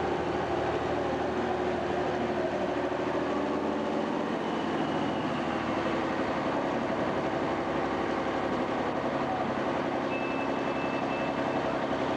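White farm tractor's diesel engine running steadily at low speed as the tractor creeps forward onto the weigh scale.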